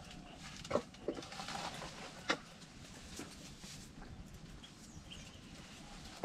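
Sri Lankan elephant feeding at a tree: leaves rustle and a few sharp snaps sound as its trunk pulls at the leafy branches, two of them louder than the rest.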